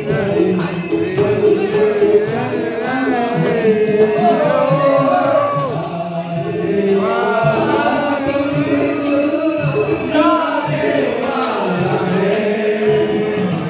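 A man singing a song into a handheld microphone, amplified through a PA loudspeaker, with musical accompaniment underneath.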